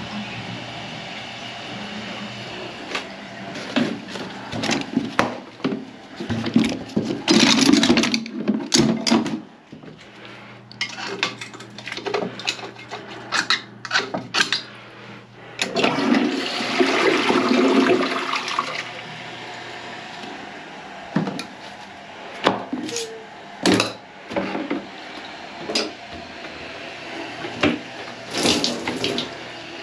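A toilet flushing or water rushing through it in two loud spells, with scattered knocks and clatter.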